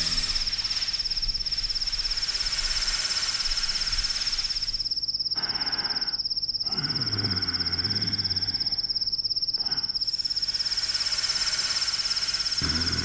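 Crickets trilling in one steady, high, rapidly pulsing note, with a faint low sound rising and falling about seven to nine seconds in.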